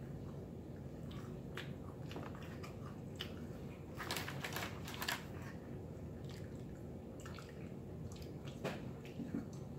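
A man eating pepperoni pizza: chewing and mouth sounds with scattered short clicks, and a cluster of crackles about four to five seconds in as pizza is pulled from the cardboard box, over a low steady background hum.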